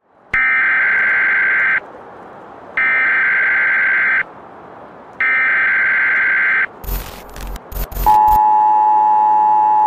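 Emergency Alert System broadcast signal: three loud, buzzing data bursts of the alert header, about a second and a half each, with short gaps between. Then a few seconds of crackling static glitches, and from about eight seconds in the steady two-tone attention signal.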